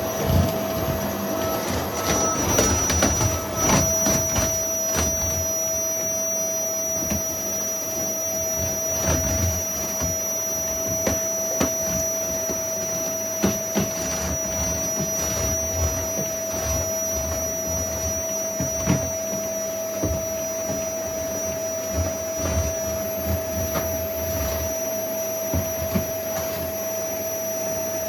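Household vacuum cleaner running steadily with a constant whine, with short knocks scattered throughout.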